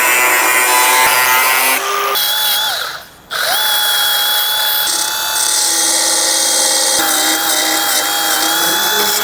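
Milwaukee belt sander cutting and beveling the steel around a broken car door hinge, with a steady high motor whine. It winds down and stops about three seconds in, then starts again about half a second later and keeps running.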